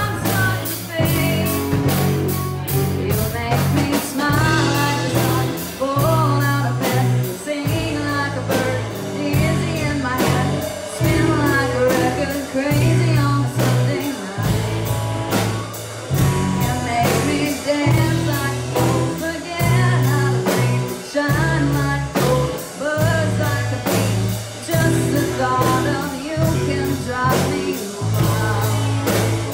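Live rock band playing a song with a sung lead vocal over bass, guitar and drums keeping a steady beat.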